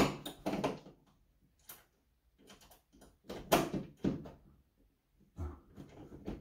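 A metal toilet paper holder post being seated on its wall bracket while a small flathead screwdriver turns the set screw underneath: scattered metal clicks, taps and scrapes, loudest at the start and about three and a half seconds in, with a dull knock near the end.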